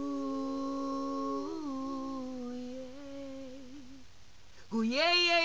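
A woman's voice humming a long held note, unaccompanied, wavering a little and fading out after about four seconds. Near the end she starts a louder sung note that slides up in pitch.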